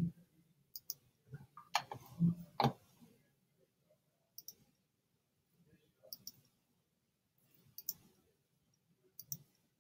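Computer mouse clicking: short, sharp clicks, mostly in quick pairs, about five times a second or two apart, with a few duller knocks about two seconds in.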